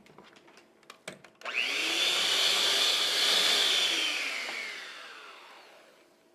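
Electric mixer beating cake batter: after a few light clicks, the motor starts about a second and a half in with a quickly rising whine, runs steadily, then drops in pitch and fades away over the last two seconds.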